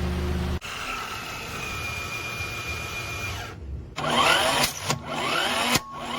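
A small electric motor whirring like a power tool, its pitch sweeping up and down in the second half, broken by several abrupt cuts.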